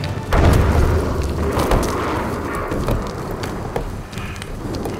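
Film sound effects of a giant cauldron crashing down: a heavy boom about a third of a second in, then rumbling with scattered crashes and clatter that die away.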